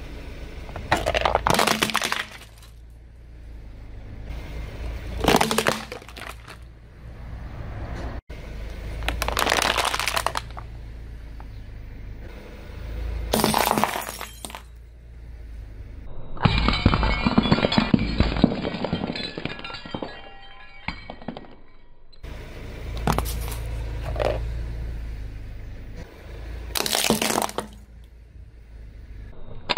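Car tyre rolling over and crushing plastic toys on paving stones, a series of loud cracks and crunches as the plastic shatters, with a longer crackling stretch in the middle. The car's low rumble runs underneath.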